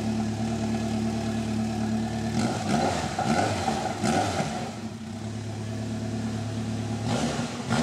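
Honda CB1100's air-cooled inline-four idling through homemade slash-cut exhaust tips. It is blipped a few times about two and a half seconds in, settles back to a steady idle, and is blipped again near the end.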